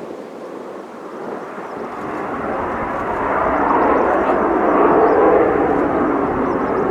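Military jet aircraft passing, its engine noise swelling over the first few seconds to a peak about four to five seconds in, then easing slightly.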